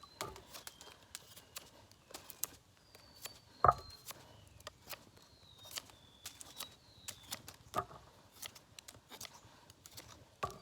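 A folding knife's blade whittling a wooden stick: a run of short shaving cuts and sharp clicks, with one louder knock about three and a half seconds in.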